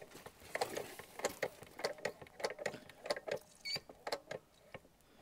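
Hand-lever diesel injector pop tester being pumped: a rhythmic series of sharp mechanical clicks and clacks from the pump strokes, about two a second. The injector gives no pop, the sign of a bad or sticking injector.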